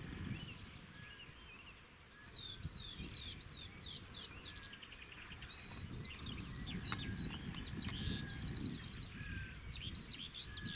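A songbird singing a varied song of quick, repeated, sliding whistled notes with a rapid trill, starting about two seconds in, over a low, rumbling outdoor background.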